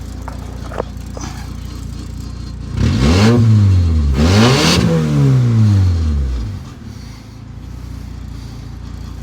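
1998 Nissan Sentra SE-R's 2.0-litre SR20DE four-cylinder engine idling. About three seconds in it is revved twice in quick succession, the pitch rising and falling each time. It then drops back to a steady idle.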